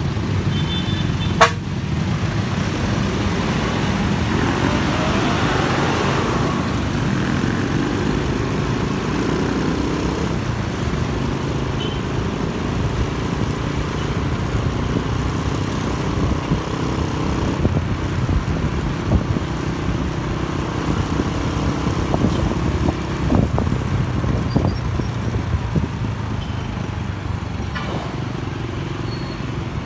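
Street traffic with motorcycle engines pulling away from a stop and running on steadily, rising in pitch as they accelerate a few seconds in. A brief horn toot sounds about a second in.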